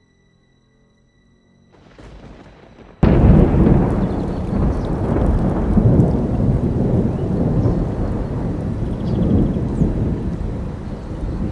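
After a hushed start, a sudden loud crack of thunder about three seconds in, followed by a sustained thunder rumble with rain.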